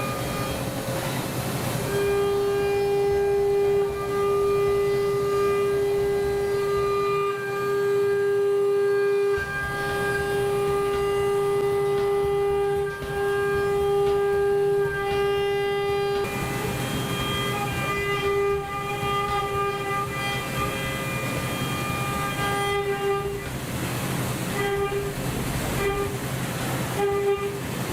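5-axis CNC milling machine cutting aluminium at high speed with an end mill: a steady high-pitched cutting tone sets in about two seconds in, then breaks up into short, choppy stretches about halfway through as the cut is interrupted.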